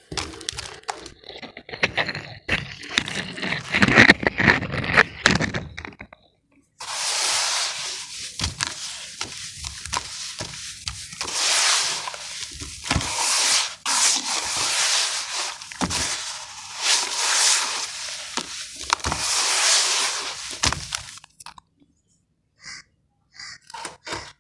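Hands crushing and crumbling chunks of sand in a plastic tub: gritty crunching and crackling. The sound breaks off briefly about six seconds in, then comes back in longer bouts of sandy rubbing. It stops about three seconds before the end.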